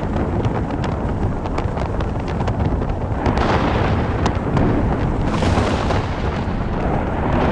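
Thunder rumbling continuously from a lightning storm, swelling about three and a half and five and a half seconds in and again near the end, with scattered faint ticks throughout.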